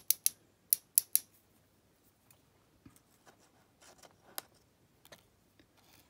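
Small metal clicks from handling the parts of a disassembled Abus 72/40 padlock with metal tweezers while its pin springs are taken out. Five sharp clicks come in quick succession in the first second or so, followed by a few faint scattered ticks.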